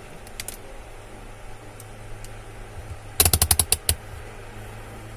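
A rapid run of about eight sharp clicks, a multimeter's rotary selector switch being turned through its detents, over a steady low hum.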